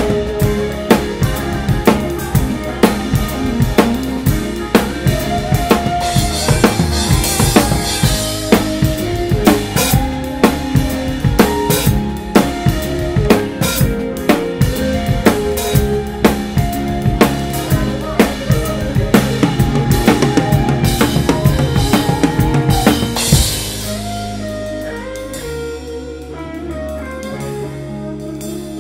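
Drum kit with Zildjian cymbals played live in a full band: fast, busy snare, tom and bass-drum strokes with cymbal crashes over the band's chords. About 23 seconds in, after a cymbal crash, the drums drop out and held low chords from the band carry on.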